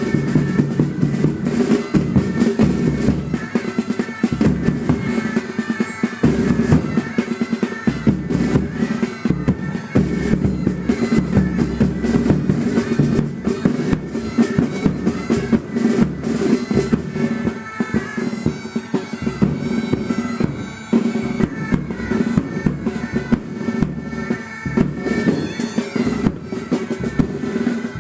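Pipe band playing: bagpipes sounding a tune over their steady drones, with snare and bass drums beating along.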